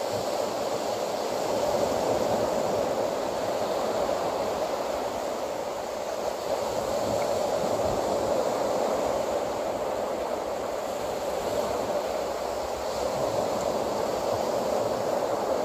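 Surf washing onto a beach, mixed with wind on the microphone: a steady rushing that slowly swells and eases.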